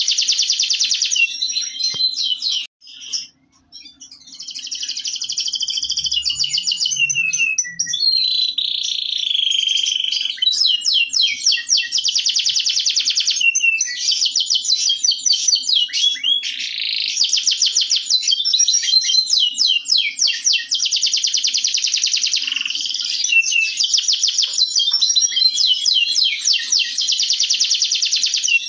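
Domestic canary (Indonesian local canary) singing a long, almost unbroken song of fast high trills and rolls, with a short pause about three seconds in.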